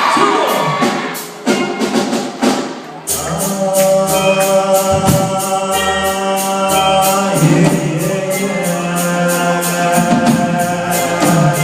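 Voices for the first few seconds, then from about three seconds in a song starts: backing music with sustained tones and a steady beat, with singing over it.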